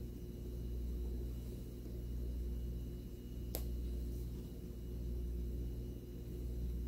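A steady low hum that swells and eases gently about every second and a half, with a single sharp click a little past halfway.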